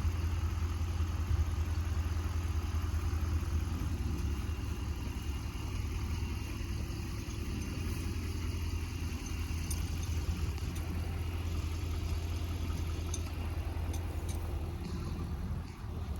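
Engine idling steadily, a constant low hum, with a few faint light clicks in the second half.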